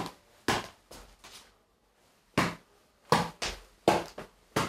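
Footbag kicked repeatedly with the top of the foot (toe kicks): a run of short, sharp thuds with a pause of about a second in the middle.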